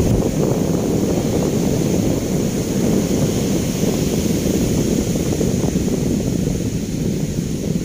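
Wind buffeting the microphone in a steady low rumble, with ocean surf washing on the beach behind it.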